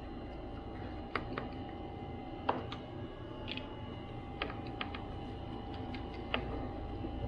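Scattered light clicks and taps, about ten at irregular spacing, of small repair tools and parts handled on an opened MacBook Pro, over a steady faint hum.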